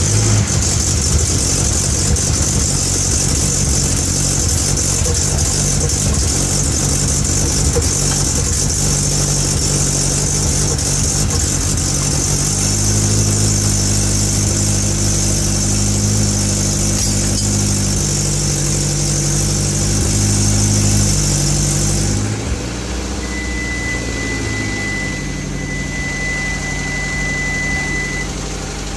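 Turbocharged Hyundai Avante (Elantra) four-cylinder engine idling just after starting, running evenly with no misfire. Exhaust leaks at an open clamp ahead of the muffler. About 22 seconds in, a high hiss stops and the engine note shifts, and a steady high beep sounds for a few seconds near the end.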